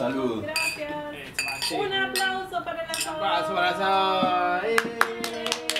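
Several voices calling out together in long held notes as wine glasses are raised in a toast, then a quick run of sharp clinks of glass and cutlery near the end.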